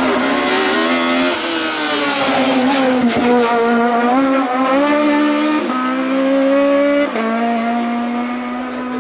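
Race car engine accelerating hard through the gears, its pitch climbing and then dropping sharply at each upshift, with a few quick cracks from the exhaust partway through.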